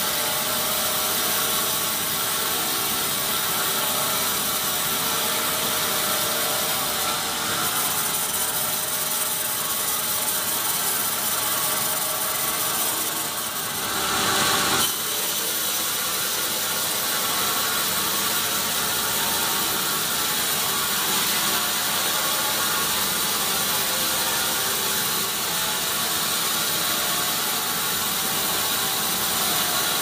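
Sawmill band saw running steadily as it cuts lengthwise through a teak log on the moving carriage, a dense mechanical noise with a brief louder surge about halfway through.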